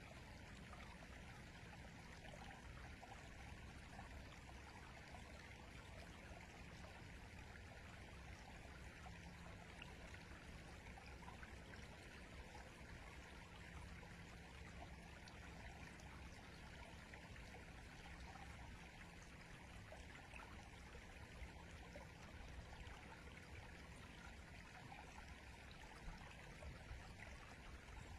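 River water flowing steadily, a faint, even rush without breaks.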